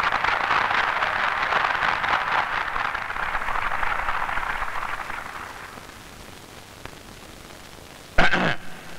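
Audience applauding, the clapping fading away about five to six seconds in. A brief loud sound with a voice-like pitch comes near the end.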